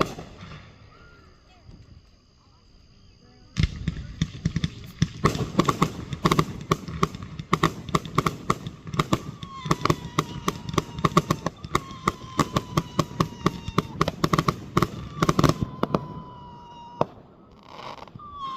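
Fireworks: after a few quieter seconds, a long rapid string of sharp crackling bangs like a string of firecrackers, lasting about twelve seconds. A thin whistle slowly falls in pitch through the later part of the string.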